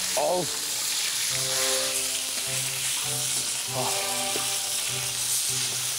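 Tomahawk steak sizzling loudly in hot oil in a large pan, a dense steady frying hiss, with background music of held notes over it.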